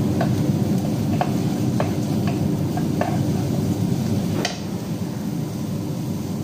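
A plastic spatula stirring food in a pot, with light scrapes and taps against the side every second or so and a sharper knock about four and a half seconds in, over a steady low rumble.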